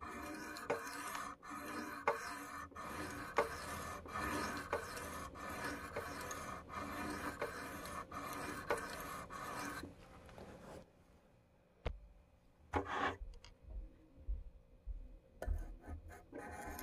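Steel knife blade stroked back and forth across a wet sharpening stone lubricated with soapy water, a gritty rubbing at about three strokes every two seconds for about ten seconds. Then the strokes stop, and there is a brief scrape and a few low knocks as the knife is turned over on the stone.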